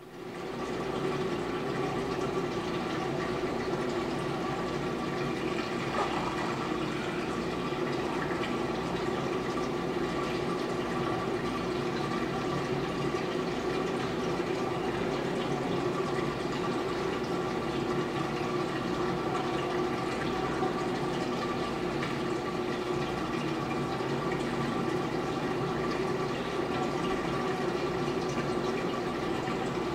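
Saltwater reef aquarium's pump and filter circulating water: a steady rush and trickle of moving water with an even hum underneath.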